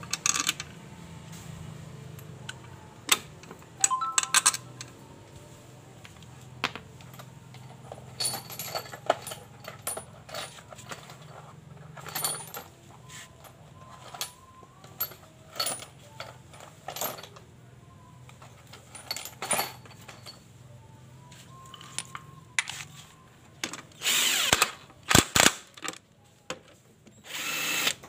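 Scattered metal clinks and taps as the scooter's CVT cover and its bolts are fitted by hand. Near the end, a cordless drill-driver runs in two short bursts, driving in the cover bolts.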